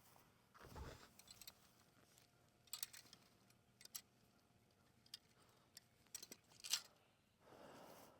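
Near silence broken by faint scattered clicks, ticks and rustles of handling, as the plastic electric poultry netting and its stakes are laid out. The sharpest click comes about two-thirds of the way through, with a soft thump about a second in.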